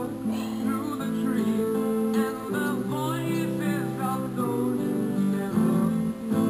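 Background music: a song with strummed acoustic guitar and a melody line that bends in pitch above it.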